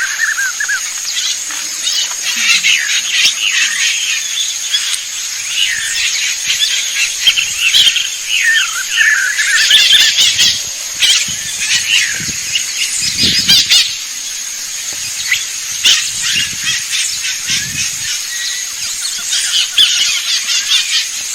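Several wild birds calling and singing at once: many quick chirps and warbled phrases overlapping, over a continuous high-pitched whine.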